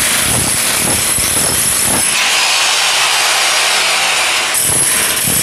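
Electric demolition hammer with a chisel bit running continuously, chipping the surface of a concrete wall. From about two seconds in, the noise turns thinner and higher for about two and a half seconds, then returns to its fuller sound.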